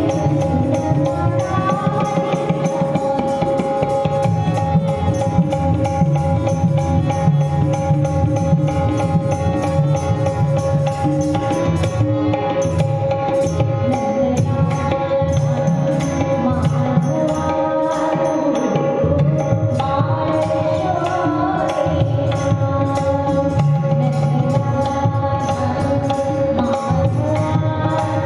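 Tabla playing a continuous rhythm under a moving melody, with two steady drone notes held throughout.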